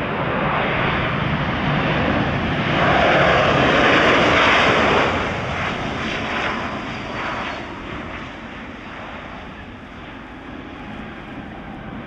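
Boeing 737-700's CFM56 jet engines during the landing rollout, swelling loud about three seconds in, as in a burst of reverse thrust, then spooling down and fading over the last several seconds.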